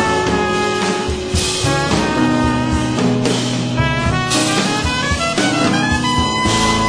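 Background music: a jazz-style tune with horns held over a drum kit, cymbal hits falling about every second or two.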